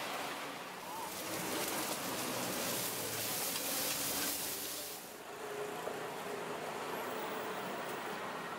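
Hoi tod, Thai crispy shellfish pancakes, sizzling in a wide pan of hot oil. The hiss swells about a second in and drops off about five seconds in, with faint voices and street noise beneath it.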